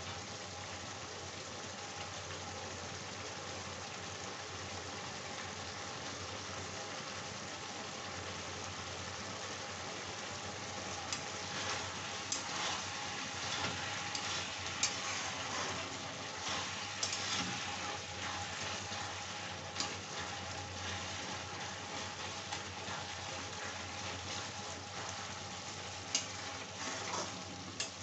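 Okra and onions sizzling in oil in a metal kadhai, over a low steady hum. From about ten seconds in, a spatula scrapes and knocks against the pan in short strokes as the okra is stirred.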